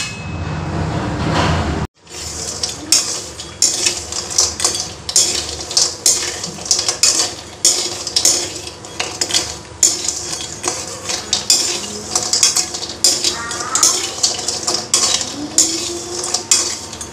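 Metal slotted spatula scraping and clinking against a steel kadhai in quick repeated strokes as dried elephant foot yam pieces are stirred, with hot oil sizzling steadily underneath.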